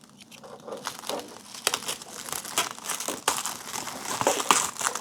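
Packing material crinkling and rustling as it is handled, in irregular crackly handfuls that grow busier and louder in the second half.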